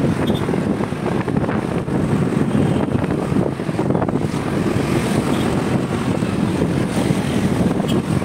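Wind buffeting the microphone of a phone carried on a moving motor two-wheeler, a steady rough rush, with the vehicle's engine and road noise under it.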